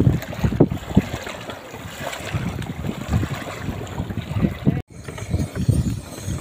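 Wind buffeting the microphone over small waves lapping on a pebbly lakeshore, with a couple of knocks in the first second. The sound drops out for a moment near the end and comes back quieter.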